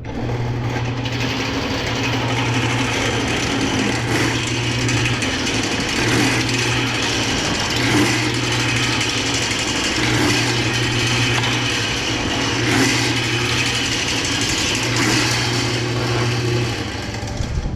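Electric motor running with a low hum that cuts in and out four times, over a loud, steady rushing noise.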